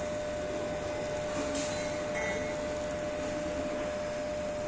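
La Cimbali coffee machine brewing a 120 ml coffee: a steady hum with a constant tone, plus brief faint hisses about two seconds in.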